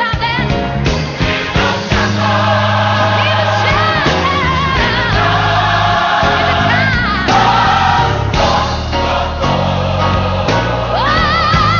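Recorded gospel song: a choir singing over a steady bass accompaniment, with a voice sliding up into a held note with wide vibrato near the end.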